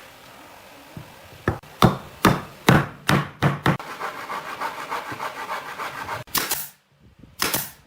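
Wood being struck with a hammer: a run of about seven sharp knocks, followed by a couple of seconds of scraping or rubbing on wood and two more loud knocks near the end.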